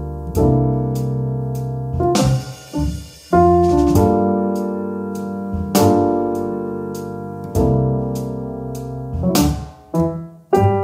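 Background music: piano or electric piano chords held and changed every couple of seconds, over light, evenly spaced percussion ticks.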